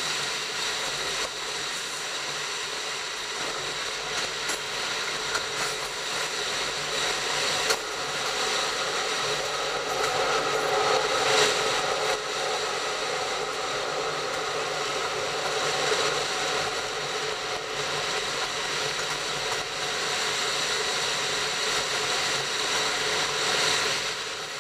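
Rail vehicle running along the track, heard from on board: a steady mechanical drone with several constant whining tones and a few sharp clicks.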